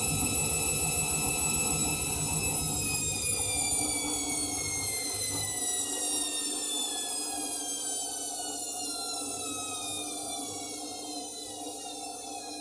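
Candy Grand'O Vita 7 kg washing machine's motor whining at the end of a spin: the high whine holds steady for about two seconds, then falls steadily in pitch and slowly gets quieter as the drum slows down.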